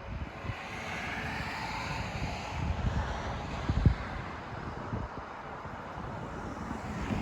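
Gusty wind buffeting the phone's microphone in uneven low thumps over a steady roar, with the strongest gust just before the four-second mark.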